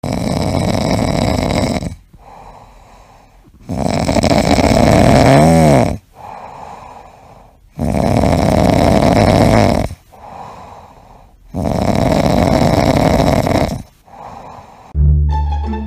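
Orange tabby cat snoring in its sleep: four long snores, each about two seconds, roughly every four seconds, with quieter breathing between. The second snore carries a whistle that rises and falls. Music starts near the end.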